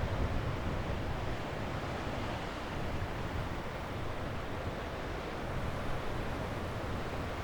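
Sea waves breaking and washing on a beach: a steady surf with a low rumble, swelling slightly now and then.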